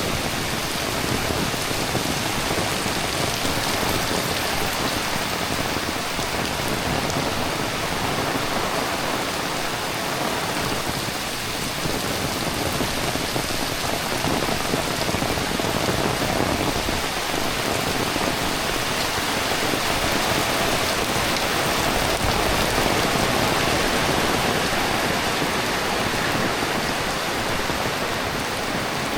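Heavy rain falling steadily, a dense, even patter of rain on surfaces.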